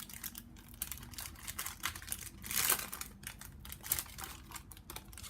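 Foil trading-card pack wrapper crinkling as it is handled and opened, with quick clicks and rustles of cards being shuffled; the loudest rustle comes about two and a half seconds in.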